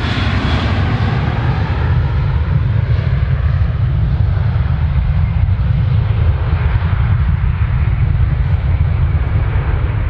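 Jet airliner's engines with a loud, steady low rumble, the higher hiss slowly fading as the aircraft moves away.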